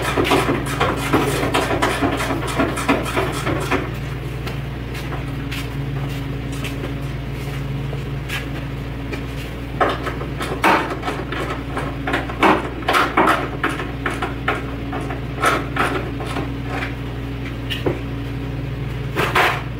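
Hand tools working the hood hinge bolts on a pickup truck. A run of quick clicking in the first few seconds is followed by scattered sharp metal clinks and knocks, over a steady low hum.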